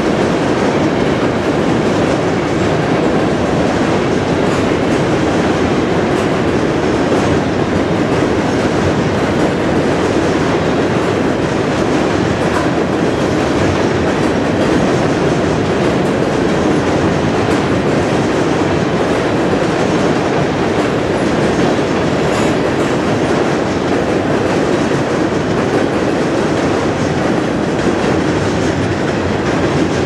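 Covered hopper cars of a freight train rolling past, their steel wheels on the rails making a steady noise.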